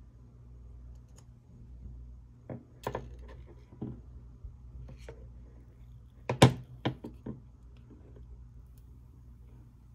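Handling noise from unboxing a phone: a scattered series of light taps and knocks, the sharpest cluster about six and a half seconds in, over a faint steady low hum.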